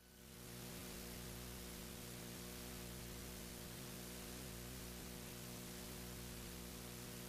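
Steady hiss with a low electrical hum, the bare noise floor of an old film soundtrack with no music or voices on it, rising in over about the first half second.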